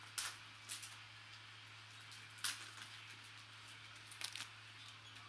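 Baseball cards being flipped through by hand: a few short, crisp clicks and snaps of card stock, spaced a second or two apart.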